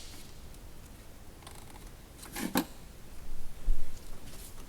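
Small clicks and rustling handling noise of parts being worked by hand, busier in the second half.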